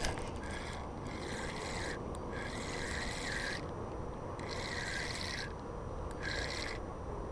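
Fishing reel being cranked in short spurts, a raspy whir that starts and stops six times, each spurt lasting about half a second to a second.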